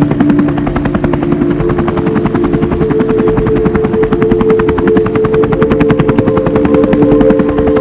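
Fishing boat's engine running steadily: a rapid, even chugging of about ten beats a second over a steady hum whose pitch shifts slightly partway through.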